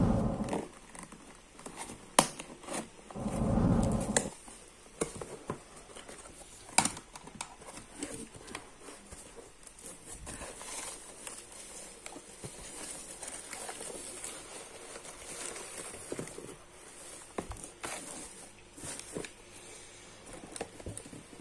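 Packing tape being pulled and torn off a cardboard box, with two loud swells in the first four seconds and a few sharp clicks. Then a steady crinkling rustle of shredded paper filler being handled inside the box.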